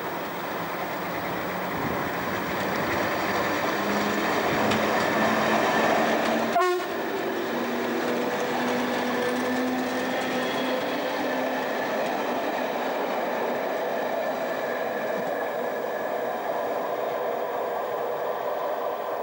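British Rail Class 307 electric multiple unit passing: a steady rumble of wheels on the track with a faint humming tone, growing louder as it nears. A sudden sharp click comes about six and a half seconds in.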